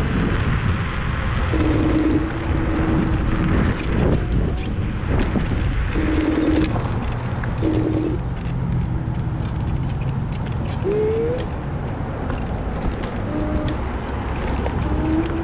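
Wind and road noise on a moving Kaabo Mantis Pro SE electric scooter: a steady rush with a deep rumble, and a humming tone that comes and goes several times and rises once in pitch.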